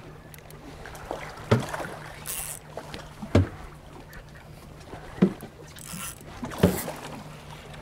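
Water slapping against a fishing boat's hull in a chop, four sharp low thumps at intervals of about one and a half to two seconds, over a steady low hum.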